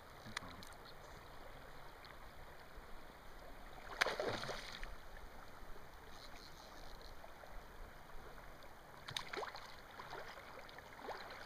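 Shallow river water washing steadily, broken by sharp splashes about four seconds in and again about nine seconds in, from a hooked chum salmon being played close to a wading angler.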